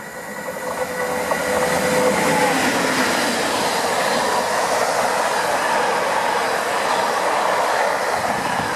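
A Class 88 locomotive hauling a container freight train passes at speed. The noise swells over the first couple of seconds as the locomotive arrives, then stays loud and steady as the container wagons roll past.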